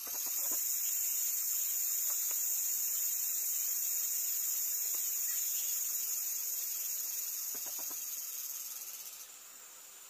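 Insect chorus in the forest: a steady, high-pitched chirring that drops away near the end.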